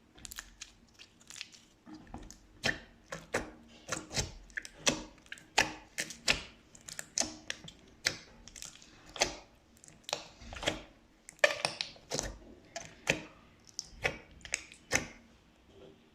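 Slime being squished and pressed by hand, giving a string of sharp irregular clicking pops, roughly one or two a second, as air pockets in the slime burst.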